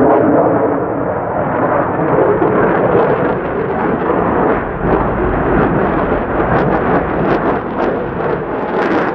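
Lockheed Martin F-35A Lightning II passing close overhead, its single Pratt & Whitney F135 turbofan making a loud, continuous jet noise. Sharp crackles come in over the second half and grow more frequent toward the end.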